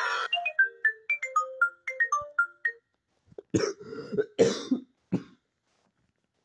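Nokia Lumia 1020 ringtone: a quick melody of short, bright mallet-like notes, about four to five a second, lasting a little under three seconds. About half a second after it ends come a few short coughing sounds from a person.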